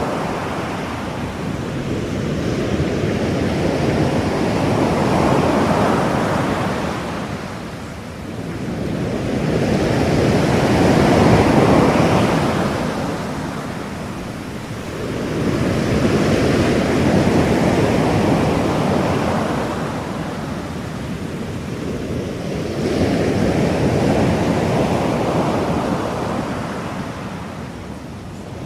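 Ocean surf: a rushing wash of waves that swells and ebbs about every six seconds, with no tones or voices.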